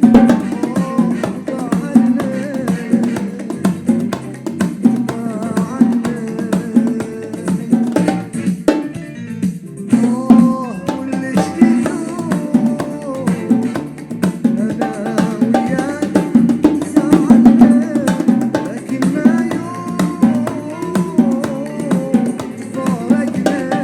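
A Gulf Arabic song: a male voice singing over hand percussion and plucked strings, with a short drop in the accompaniment about nine seconds in.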